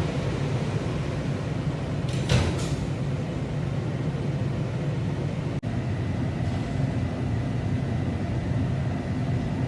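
Washington Metro railcar's sliding doors shutting with a thump about two seconds in, then the steady low rumble of the train. A brief dropout comes midway, after which a faint steady high tone runs under the rumble.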